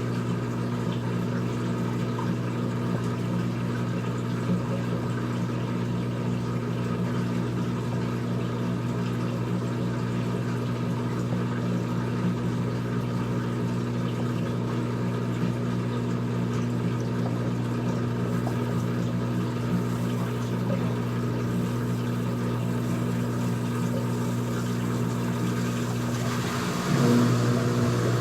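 Old-style front-loading washing machine running, a steady motor hum with several constant low tones. Near the end it abruptly gets louder, with a rushing sound added on top.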